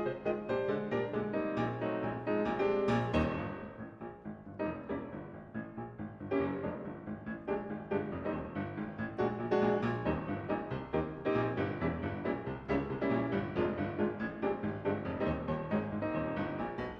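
Piano music, a steady run of quick notes, growing briefly quieter about four seconds in.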